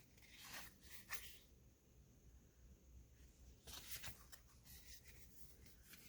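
Faint rustling of paper craft supplies being handled, in two short spells: about half a second in and again around four seconds in.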